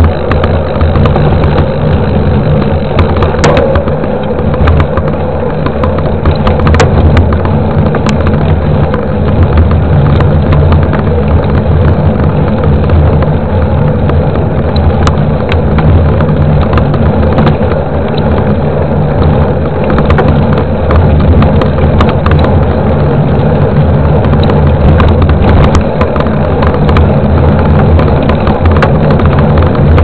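Steady wind buffeting and rumble on the microphone of a camera mounted on a moving mountain bike, with the tyre rolling on pavement. Scattered short clicks and rattles come through as the bike goes over bumps.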